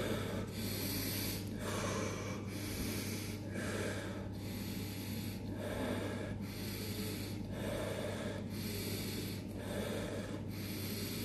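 A man doing pranayama breathing: deep, rhythmic breaths in and out, about one full breath every two seconds, with each inhale and exhale lasting about a second.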